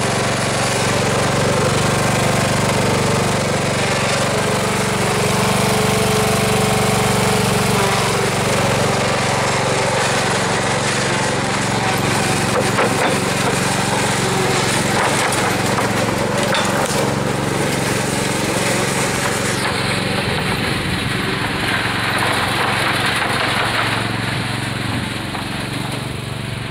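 Riding lawn mower's small petrol engine running steadily under load as it tows a loaded trailer.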